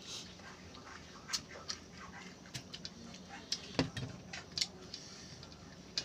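Eating sounds at a rice-and-fish-curry meal: irregular small clicks and taps of eating by hand and chewing, with one duller knock a little before four seconds in.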